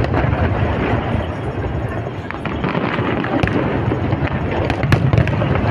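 Aerial fireworks display: shells bursting in a dense, continuous run of booms and crackle, with sharp bangs standing out about three and a half and five seconds in.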